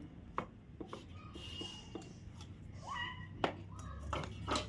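Scattered sharp taps and clicks, with a couple of brief chirp-like tones in between.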